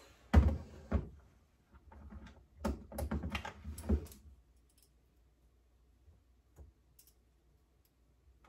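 Metal hand-mixer beaters being released from an electric hand mixer and handled over a metal saucepan: a sharp click, another a moment later, then a quick run of clicks and clinks, then only a few faint ticks.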